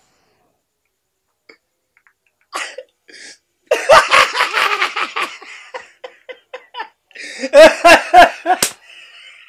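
A man laughing loudly in bursts of quick pulses, starting about two and a half seconds in, with a second loud laugh near the end.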